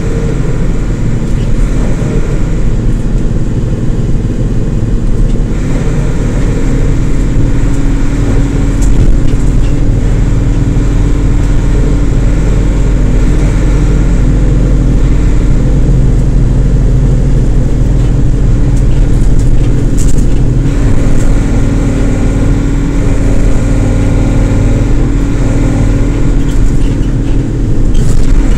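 Diesel engine of a 2006 Isuzu LT133P bus running as the bus is driven, a steady drone whose pitch shifts about six seconds in.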